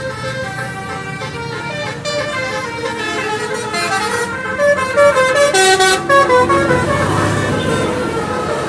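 Basuri multi-tone "telolet" bus horns playing a stepped melody, the note changing every quarter second or so, with several tones sounding together. The horns are loudest about five to six seconds in, and a noisy rush sits under them about seven seconds in.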